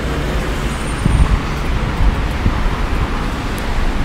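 City street traffic noise: a steady wash of passing cars and engines, with a few louder low rumbles about a second in.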